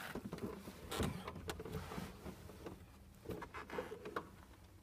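Faint scattered clicks, knocks and rustles of handling inside a stationary car's cab, with the engine off. A few knocks are a little louder, about a second in and again near the end.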